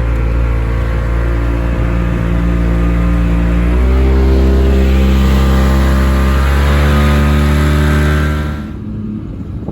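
Motorboat engine running under heavy throttle, its pitch stepping up twice as the revs climb, then dropping away sharply as the throttle is eased off near the end.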